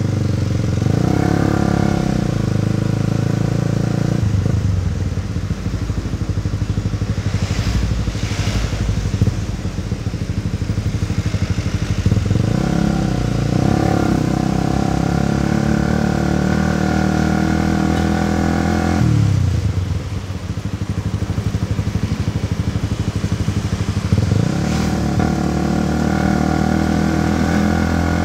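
Motorcycle engine heard from the rider's seat while riding: the revs sweep up three times (about a second in, about twelve seconds in, and near the end), hold steady between, and fall away twice as the throttle is eased off.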